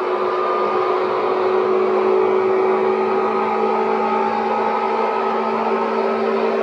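Seibu 10000 series electric train running: a steady rumble of running noise with several steady humming tones over it, one of which slides slightly lower midway.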